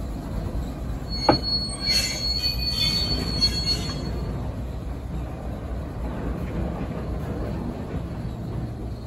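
Small diesel shunting locomotive running as it moves off along the track, with a steady low rumble. About a second in there is a sharp click, then the wheels squeal high-pitched against the rail for about three seconds before fading out.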